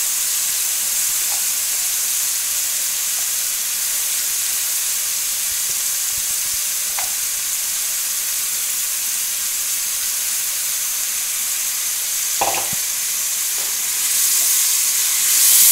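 Ghee-based tomato masala sizzling steadily in a wok with a load of freshly added soaked moong dal. There is a single knock about twelve seconds in. Near the end a wooden spoon starts stirring and the sizzle grows louder.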